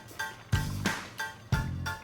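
Background music with a steady beat: a low thump about once a second, sharper hits between, and short repeated bright notes.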